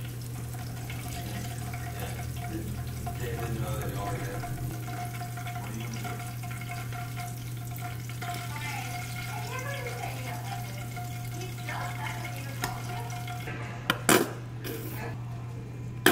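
Taquitos sizzling in hot oil in a frying pan, a steady hiss over a low hum. A few sharp clacks come about two seconds before the end.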